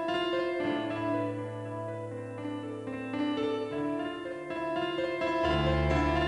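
Background music led by piano, with held bass notes that come in about a second in and drop lower near the end.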